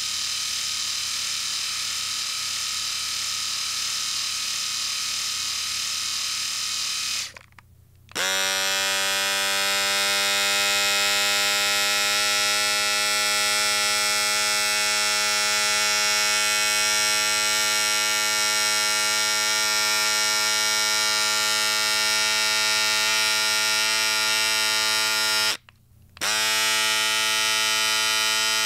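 An electric shaver runs with a high, hissy buzz and cuts off about seven seconds in. A second electric shaver then switches on, spins up within a moment to a steady buzz with a clear low hum, switches off briefly near the end and starts again.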